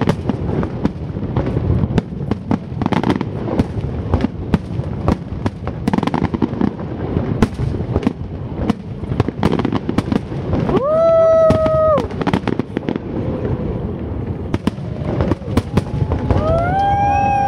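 Dense fireworks display: aerial shells bursting in rapid, continual bangs and crackles. About eleven seconds in, and again near the end, a long pitched whoop rises over the bangs.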